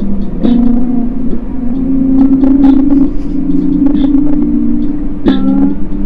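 Background music: steady low droning notes that step to a new pitch about half a second in and again near the end, with light clicks scattered through.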